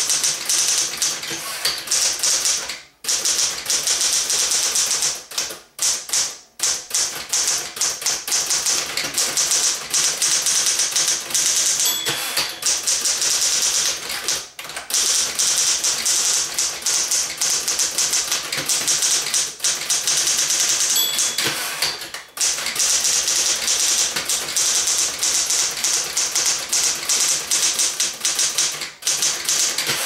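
1969 Smith-Corona Super Sterling manual typewriter being typed on at a quick, steady pace, its typebars clacking against the platen with a few brief pauses. A short bell-like ding sounds twice near the middle, which fits the margin bell at the end of a line.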